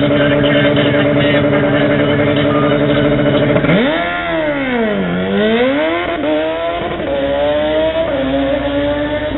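Drag-racing motorcycle engine held at a steady high rev on the start line, then launching about four seconds in, its pitch sweeping up and down sharply before settling into a higher, climbing note as the bike accelerates away down the strip.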